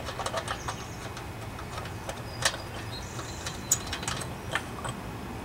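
Scattered light clicks and taps of metal parts and tools being handled at a lawnmower carburetor, the sharpest about two and a half seconds in, over a low steady background hum. A faint thin high tone comes in briefly a little after three seconds.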